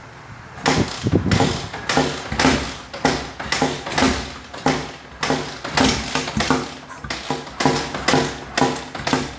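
KTM LC4 400 single-cylinder engine being cranked over on the starter without catching. It chugs evenly about twice a second as it comes up on compression: a cold start after three days standing.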